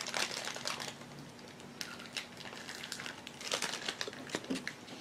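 Faint scattered crinkling and clicking rustles over a faint steady hum.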